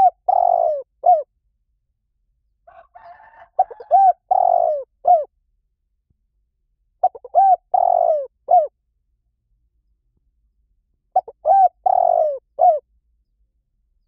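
Spotted dove cooing: four phrases about four seconds apart, each a few quick short notes, then a longer drawn-out coo and a short final note.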